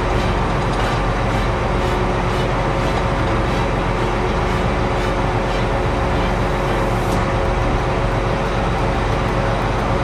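John Deere 8R tractor's six-cylinder diesel engine idling steadily, with a constant pitched hum over the low rumble. A light click about seven seconds in.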